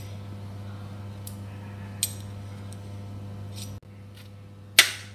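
Light metallic clicks and ticks of small steel bearing balls and a screwdriver tip against a Shimano freehub body, as the balls are set into the freehub by hand, with a sharper metal clink near the end.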